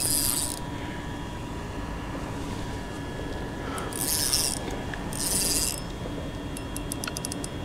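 Spinning reel with a fouled line being worked by hand: three short hissing rasps of line rubbing on the reel, then a quick run of small clicks from the reel near the end. The line is tangled and will not reel in.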